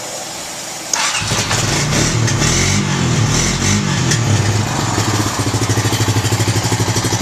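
2005 Honda Rancher 350 ATV's single-cylinder four-stroke engine catching about a second in, revving up and down twice, then settling into an even idle. It is running on a freshly rebuilt carburetor with the idle set too low, and it tends to stall.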